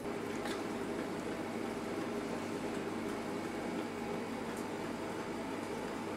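Steady hum of running equipment or ventilation in a small room, with one or two faint ticks.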